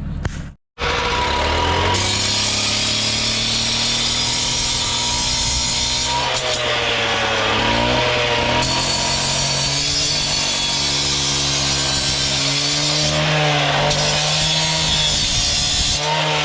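Gas-powered concrete cut-off saw running and cutting into concrete: a steady engine whine over a harsh grinding hiss, its pitch dipping and recovering a few times as the blade bites.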